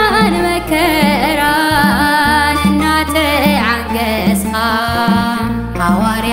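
A woman singing a Tigrinya Orthodox hymn (mezmur) with a wavering, ornamented melody over an instrumental accompaniment of held bass notes and a repeating low figure.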